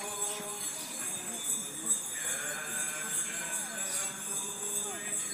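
Small hand bells jingling steadily over a group of people singing a hymn as they walk.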